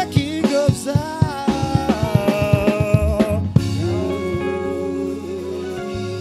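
Live gospel band music: drums and a bending, sung or played melody line until about three and a half seconds in, then the drums stop and a chord is held over a steady bass note as the song winds down.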